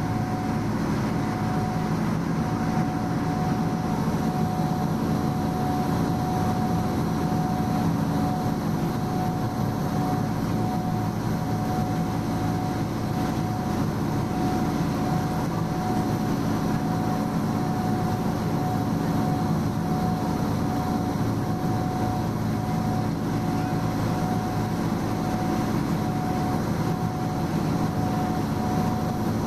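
Harbourcat catamaran ferry's diesel engines running steadily: an even drone with a constant higher whine over it.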